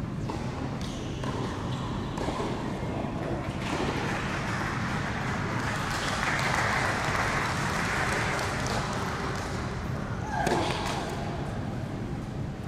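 Tennis ball bounced on an indoor hard court before a serve, over a murmur of voices in a large hall that swells in the middle. A short falling tone near the end.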